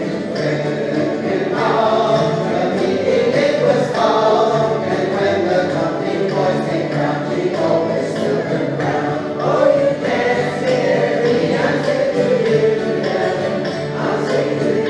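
A group of voices singing a folk song together in unison, accompanied by strummed acoustic guitars.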